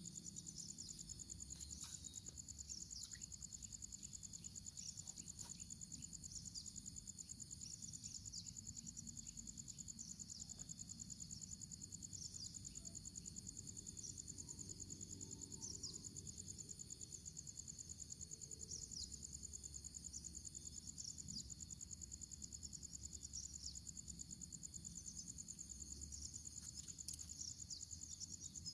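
A steady, high-pitched trilling chorus of insects runs on without a break. Near the end there is one brief click.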